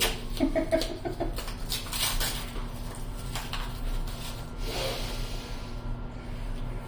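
Handling noise: a run of light clicks and rustles, thickest in the first few seconds and thinning out after, over a faint steady hum.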